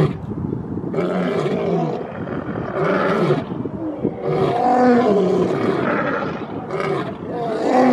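Two male lions roaring together in a bout of repeated calls, about one call a second, their calls overlapping.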